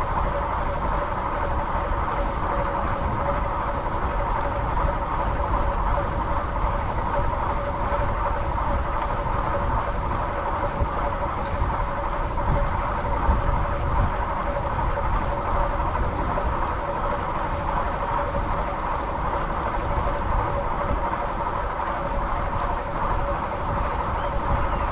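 Steady ride-along noise from a fixed-gear bicycle in motion: wind rumbling on the microphone and tyre and road noise, with a constant hum underneath.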